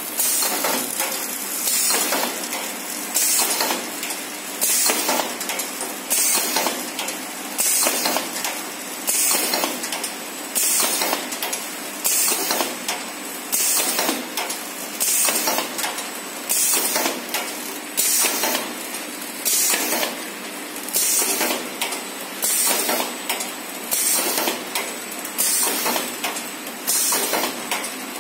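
Flow packing machine with a counting feeder running: a steady machine noise with a burst of metallic clatter about every second and a half as each counted batch of sausages is released onto the infeed conveyor.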